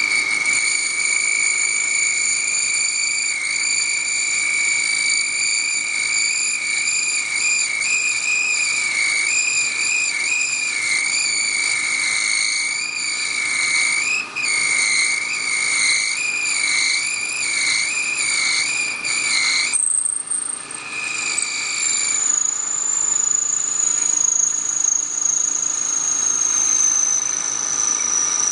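Thin parting tool squealing against a spinning bone cylinder on a wood lathe as the piece is parted off: a loud, high-pitched squeal that wavers in pitch and stops about twenty seconds in. After it, a fainter high whine slowly drops in pitch.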